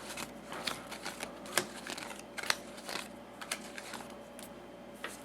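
Playing cards being dealt and set down on a table: a string of light, irregular clicks and taps.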